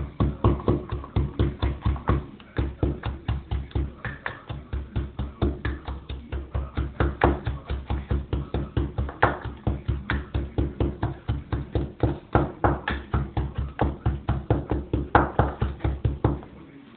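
Pestle pounding garlic, guindilla chillies and salt in a mortar: quick, even thuds about four or five a second, with a brief pause about two seconds in, stopping just before the end.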